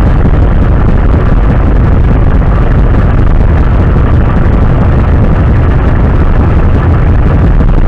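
Motor vehicle engines idling in stopped traffic: a loud, steady low rumble.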